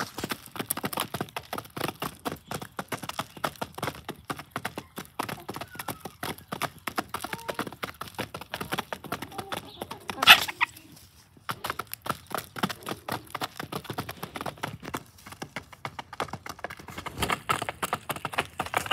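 Hens pecking rice from a feed pan: rapid, irregular taps of beaks striking the rice and the pan, with occasional clucks. There is one louder, sharp sound about ten seconds in, then a short hush.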